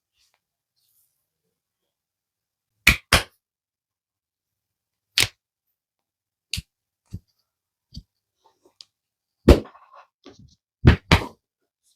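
A barber's hands slapping a customer during a massage: sharp, irregular smacks, some in quick pairs, the loudest about three seconds in, at nine and a half seconds and near the end.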